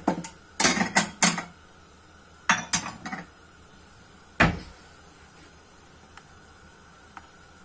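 Spoon clinking against a container: several sharp clinks in quick groups over the first three seconds, then one heavier knock about four and a half seconds in.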